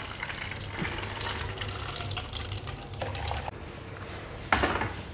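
Used frying oil being poured out of a pan, a steady pour for about three and a half seconds, then a short loud clatter near the end.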